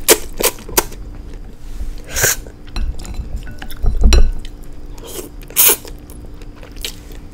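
A utensil clinking against a noodle bowl, three sharp clicks in the first second, then two short hissy eating bursts of instant noodles a few seconds apart and a low thump near the middle.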